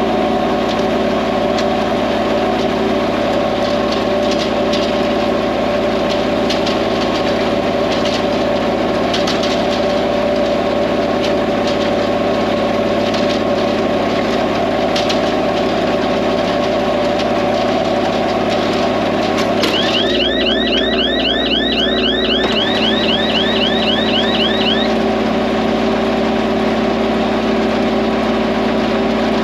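Diesel tractor engine running steadily. About two-thirds of the way through, a rapid run of short, high, rising chirps comes in for roughly five seconds.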